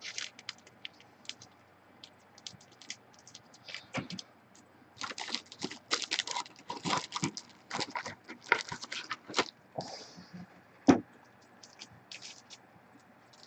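Trading cards and their plastic and paper packaging being handled: scattered small clicks, crackles and rustles, thickest in the middle, with a sharper click near the end.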